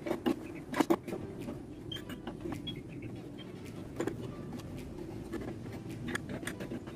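Light clicks and knocks of wood and metal as a homemade wooden bench clamp is tightened on a board by turning its threaded screw handles, with a few sharper knocks in the first second and another about four seconds in. A steady low hum runs underneath.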